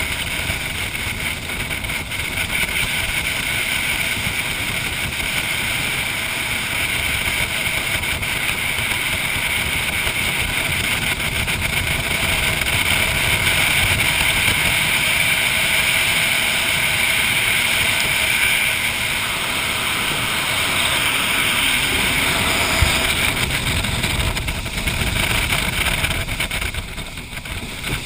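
Jet boat running fast on a river: a steady engine and jet-drive drone mixed with rushing water. The sound dips briefly near the end.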